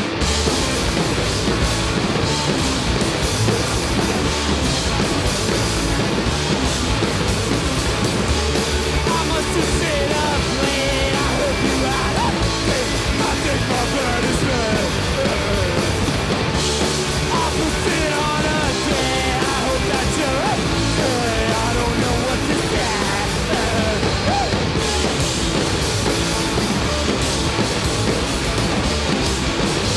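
A rock band playing live and loud, with distorted electric guitars, bass guitar and two drum kits, the full band coming in together at the start.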